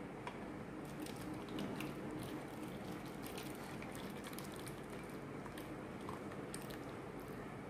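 Faint pouring of coconut-water jelly mixture with strips of coconut flesh from a steel bowl into a plastic container, with scattered light ticks of a steel spoon against the bowl.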